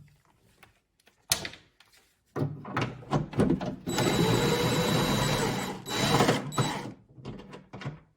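Cordless 1/4-inch impact driver spinning a loosened 10 mm nut off, with a steady whine for about two seconds in the middle that winds up and back down. Shorter rattles and clicks of the tool and nut come before and after it.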